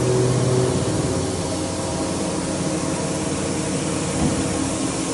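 Doosan DB25CM CNC horizontal boring and milling machine running: a steady mechanical hum made of several constant tones over an even hiss.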